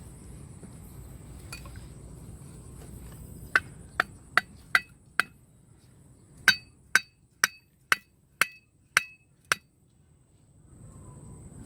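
A hard object struck sharply twelve times, in a run of five and then a run of seven, about two strikes a second, each knock with a short ringing.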